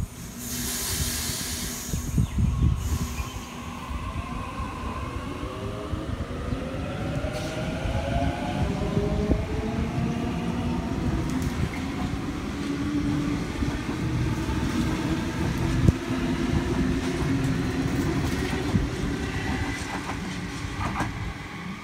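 Sydney Trains Waratah electric train pulling out of the platform. A loud burst of hiss comes in the first couple of seconds, then the traction motors give a rising whine in several pitches as it accelerates, which levels off, over a steady rumble and clatter of wheels on rails.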